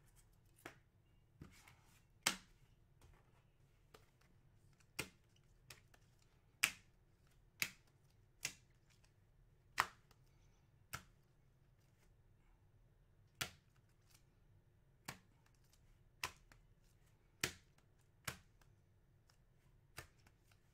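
Trading cards in clear plastic holders being set down and tapped one by one onto a wooden table while being sorted into stacks. Each one makes a sharp click, irregular and roughly once a second, some louder than others.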